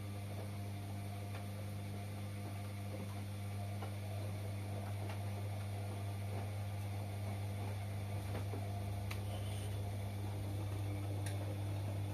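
Washing machine running: a steady low hum that comes on just before and grows a little louder, with occasional light ticks.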